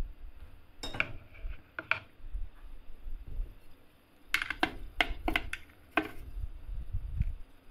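A metal scraper and spoon tapping and clinking on the steel ice-cream roll plate. There are two sharp taps about a second apart near the start, then a quick run of five or six clicks around the middle, over a soft low rumble of handling.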